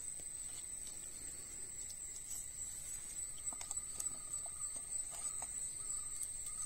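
Insects chirring with a steady high-pitched whine. About halfway through, a faint, broken lower tone and a few soft clicks join in.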